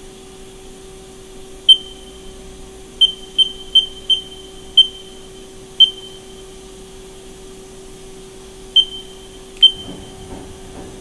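Haas CNC control pendant beeping as its keys are pressed: nine short, high beeps of one pitch at uneven intervals, over the steady hum of the powered machine.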